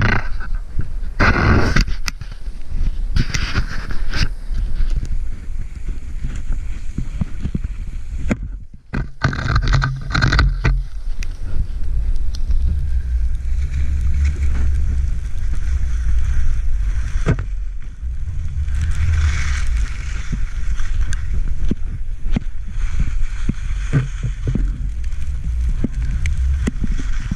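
Wind buffeting the microphone of a body-worn camera while skiing downhill, a steady low rumble, with the skis scraping and hissing over the snow in several louder surges.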